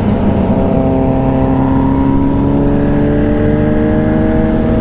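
Motorcycle engine pulling at high revs, its pitch climbing slowly and steadily as it accelerates, over wind and road rumble.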